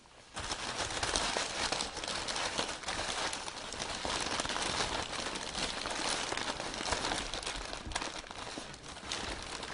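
Plastic and paper packaging crinkling and rustling continuously as a trading-card box is unwrapped and opened by hand, starting about a third of a second in.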